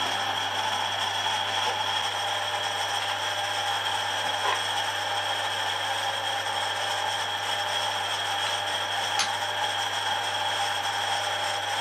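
Harrison 140 metalworking lathe running with a steady hum. Two light metallic clicks come about four and nine seconds in.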